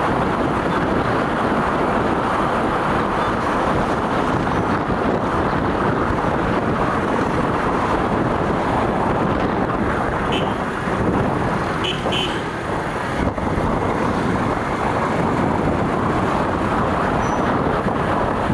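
Riding a motorcycle in traffic: a steady rush of wind and road noise with the bike's engine underneath. Two short horn toots come a little past halfway.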